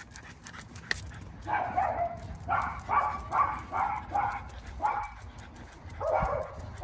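A dog barking in a quick series of about seven barks, then one more after a short pause.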